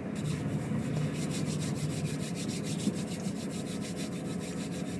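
Volvo truck's tandem drive-axle tyres spinning and scrubbing on a smooth, rain-wet road, a rapid regular rubbing over the engine's low hum. The wheels are losing grip on the slippery surface, which a tandem axle tends to do.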